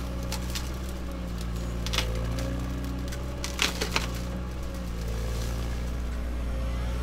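Excavator engine running steadily while a hydraulic MDE Koala tree shear snaps through brushwood and small branches. Sharp cracks of splintering wood come about two seconds in and as a quick cluster near four seconds.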